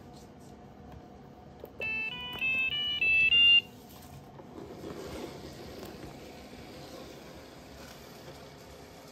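iRobot Braava robot mop sounding its electronic chime: a quick run of about six short beeps, getting louder, the last the loudest. The robot has stalled just after starting, and this is its error alert.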